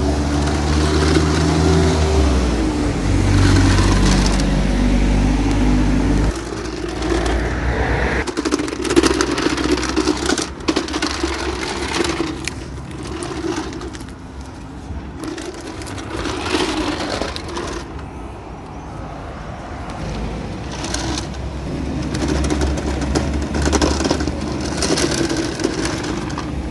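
Car engine hum for about the first six seconds, then a jumble of road or street noise with short knocks.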